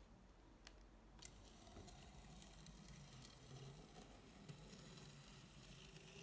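Faint whir of a Bachmann Baldwin 10-12-D 009 model locomotive's small electric motor and gears running slowly on 3 V, starting after two light clicks about a second in.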